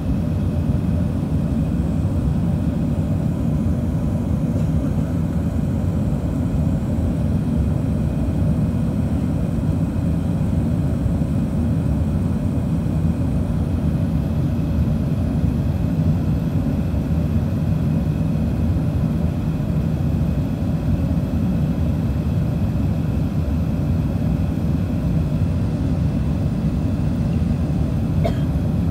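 Cabin noise of an Airbus A380-861 climbing after takeoff: its Engine Alliance GP7270 turbofans and the airflow make a steady low rumble, with faint steady tones above it. A short click near the end.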